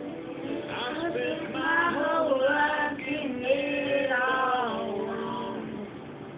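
Music: a sung melody with held, gliding notes over a steady instrumental accompaniment.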